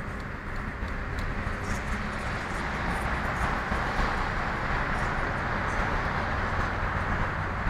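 Steady road and wind noise inside a car cruising at motorway speed, with a low rumble beneath. It grows a little louder in the middle while passing under an overpass.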